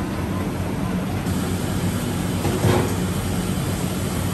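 Steady rushing background noise with a low machine hum, and one brief louder knock or clatter a little over halfway through.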